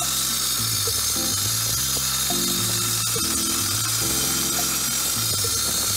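Miter saw blade cutting through an aluminium bar, a steady high-pitched metallic screech, over background music with a stepping bass line.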